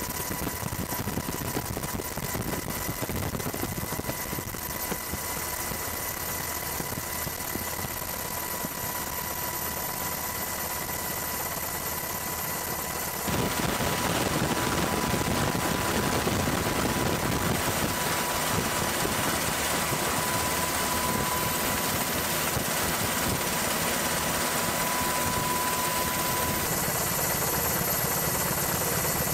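Steady engine noise with a faint steady high tone. It jumps abruptly louder about halfway through and changes character again near the end.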